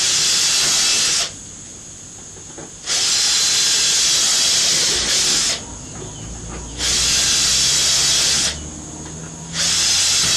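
A power drill run in four bursts of one to two and a half seconds each, with a loud hissing sound, drilling rivet holes through the plastic lid, the aluminium and the hinge.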